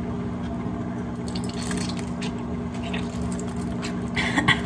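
Lemon juice squishing and dripping from a lemon half squeezed in a handheld citrus press into a glass bowl, with small scattered clicks, and a louder cluster of clicks near the end.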